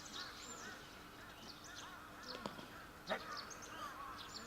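Many birds calling at once, a busy chorus of short arching chirps and calls. A single short sharp knock comes about three seconds in.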